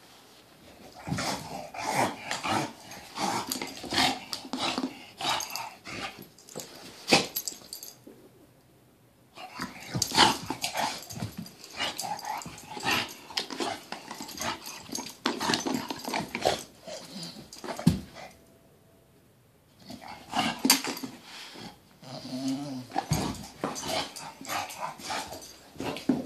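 English bulldog growling as it plays with and mouths a red rubber Kong toy, with many sharp clicks and knocks. The sound comes in three spells of several seconds each, broken by two short pauses.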